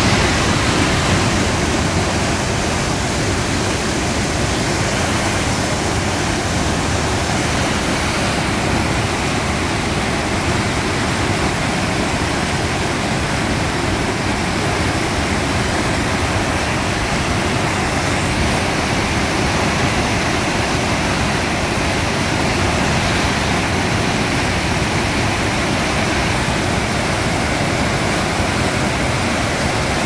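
River in flood rushing through rapids: loud, steady whitewater noise with no break.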